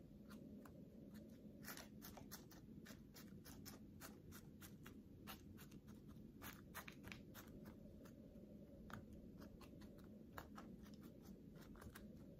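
Faint, irregular small clicks and scratches of hands sowing seeds into a seed-starting tray, over a low steady room hum.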